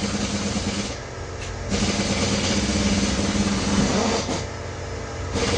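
Steady mechanical running noise with a low hum, easing off twice for about a second.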